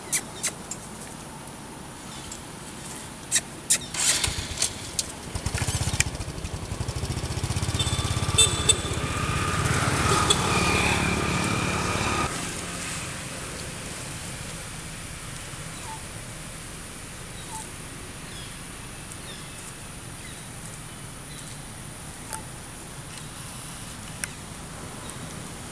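Several sharp clicks in the first few seconds, then a motor vehicle engine running close by for about six seconds with a steady whine, cutting off abruptly about twelve seconds in; after that, a quieter steady outdoor background.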